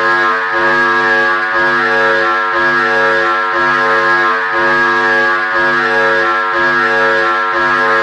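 Loud synthesized emergency-alert-style alarm tone: a steady droning chord of many held pitches, with a low pulse about once a second.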